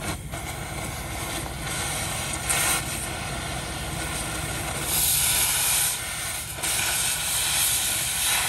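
Oxy-acetylene cutting torch hissing as it cuts through a steel boat-trailer fender. The hiss gets louder briefly about two and a half seconds in, then again for longer stretches in the second half.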